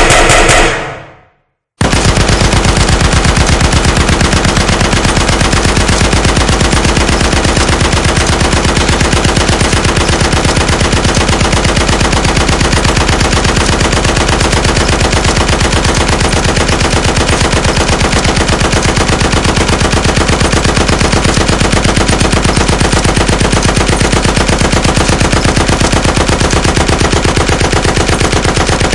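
A short burst of gunfire dying away, then after a brief gap a long, unbroken stream of rapid automatic machine-gun fire at a steady, loud level.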